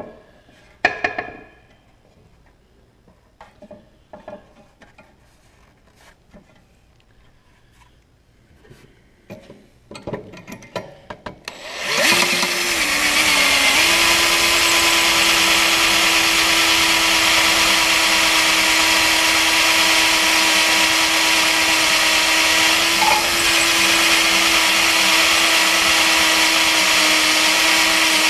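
Scattered knocks and clinks of metal parts being handled inside a snow blower's impeller housing. About twelve seconds in, a cordless drill starts and runs steadily, boring through the steel bar of an impeller-kit paddle into the impeller blade.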